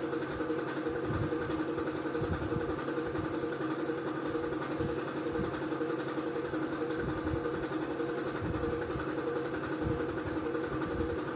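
Steady downtown city drone picked up by a rooftop webcam: a constant mechanical hum over distant traffic noise, with irregular low rumbles.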